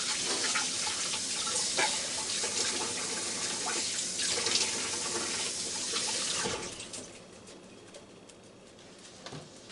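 Kitchen tap running into a sink, water splashing as sauce is rinsed off hands, then shut off about two-thirds of the way through.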